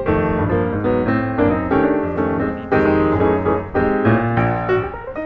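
Background piano music, a busy run of quick notes with several sounding at once.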